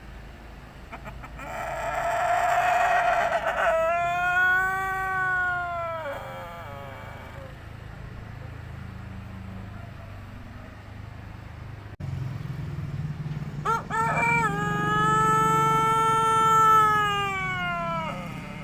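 Pelung rooster giving two long, drawn-out crows, the first opening rough and harsh before clearing into a held tone that falls away at the end. This crow has changed after molting and a snoring respiratory illness, which the owner expects to come good again with treatment.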